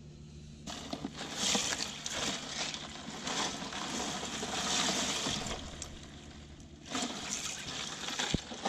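Water sloshing and splashing in a cooler as a hand moves through it, in two spells: from about a second in until past the middle, and again near the end.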